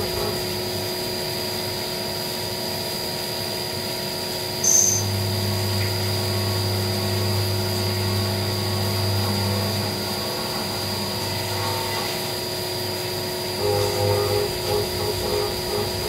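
Syil X7 CNC milling machine cutting a metal plate under flood coolant: a steady spindle whine over the hiss of coolant spray and the cutting noise. A brief sharp sound comes about five seconds in, after which a lower hum grows louder for a few seconds.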